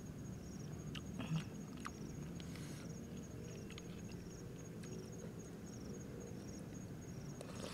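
Close-up eating sounds: a metal spoon clicking and scraping against a plastic bowl of kapurung, a soft sago soup, with quiet mouth and chewing noises. The sharpest click comes about one and a half seconds in. An insect chirps faintly and steadily, about twice a second, in the background.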